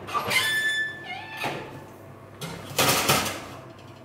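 Oven door being opened and a metal tube cake pan pushed onto the wire oven rack: a few scraping, clattering metal sounds with a short ringing squeak near the start, the loudest clatter about three seconds in.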